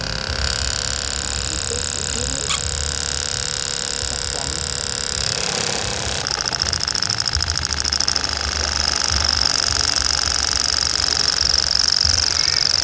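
A small motor-driven machine running steadily with a high-pitched whine over a low hum; the whine shifts and grows stronger about halfway through.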